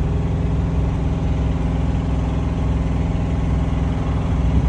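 Semi truck's diesel engine idling steadily, an even low hum with no change in speed.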